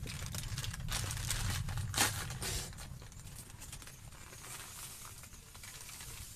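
A plastic packet of semolina crinkling and rustling as it is handled and emptied into a metal pot. The crackling is busiest over the first three seconds, with one louder crinkle about two seconds in, then fainter.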